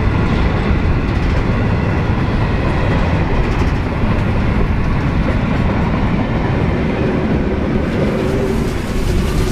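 Freight train of grain hopper wagons rolling past, wheels clicking over the rail joints with a steady rumble, followed about halfway through by the trailing S-class diesel-electric locomotive of a push-pull consist.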